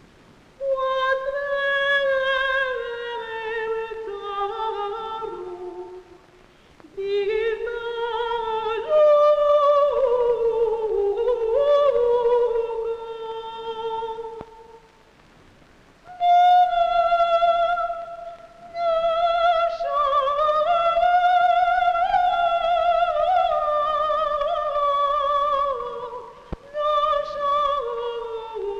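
Film score of a single slow melodic line with vibrato, gliding between held notes in long phrases separated by short pauses.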